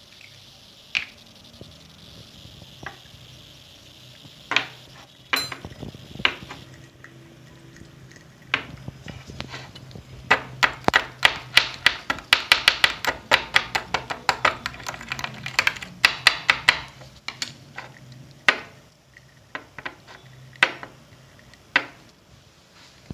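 A thin metal tool clinking against the inside of a small glass jar while stirring water into potassium ferrate. The clinks are scattered at first, then come quickly, several a second, for about seven seconds in the middle, then thin out again.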